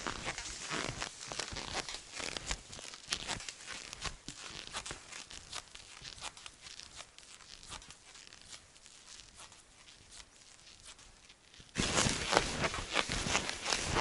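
Hunting skis crunching and swishing through dry, frozen snow, step after step, fading as the skier moves away. About 12 seconds in, loud close-up crunching of skis in snow starts suddenly.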